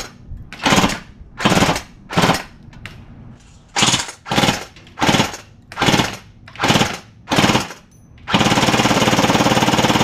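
ARES PPSh-41 electric-blowback airsoft gun firing on full auto: short rattling bursts about one every three-quarters of a second, a pause of about a second and a half, more short bursts, then one long burst of about two and a half seconds starting near the end.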